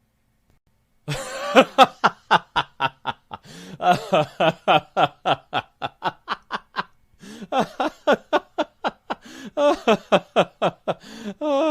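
Laughter in rapid voiced "ha-ha" pulses, about four or five a second, running in several bouts with short breaks for breath. It starts about a second in, after a moment of silence.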